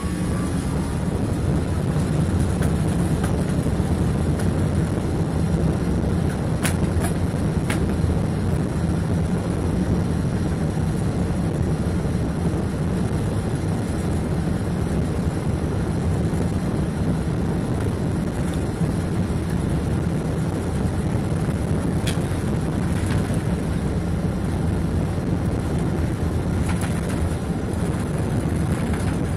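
Boeing 777-200ER jet engines and airframe heard from inside the cabin during the takeoff roll: a steady heavy rumble with rushing noise that grows louder over the first couple of seconds as thrust builds. A few brief clicks cut through it.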